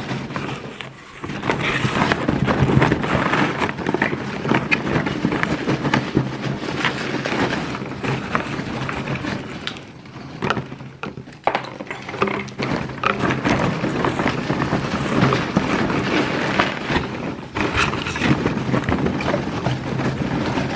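Rustling and crinkling of packing paper and wrapping as hands rummage through a cardboard parcel, with scattered knocks from the box being handled.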